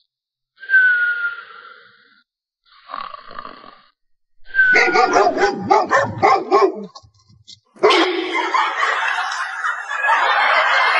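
A dog barking, several quick barks in a row, followed by a few seconds of loud, steady noise.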